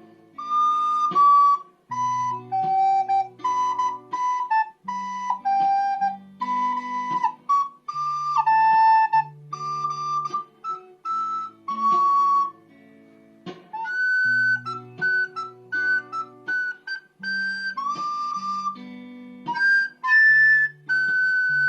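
Instrumental music: a flute-like melody of short held notes over plucked guitar chords, with a brief pause about two-thirds of the way through.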